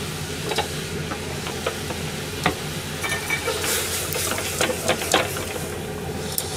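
Flounder simmering in sauce in an aluminium pan on a gas hob: a steady bubbling hiss, with light clinks and knocks scattered throughout as the pan and utensils are handled.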